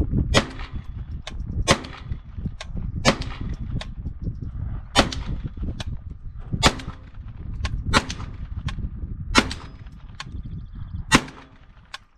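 AR-15-platform pistol in .22 LR firing single shots at a slow, steady pace, eight sharp reports roughly one and a half seconds apart, with fainter sharp ticks between some of them.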